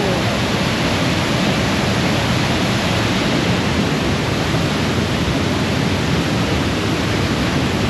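Loud, steady rush of fast-flowing river water and waterfall, swollen and deeper just after rain.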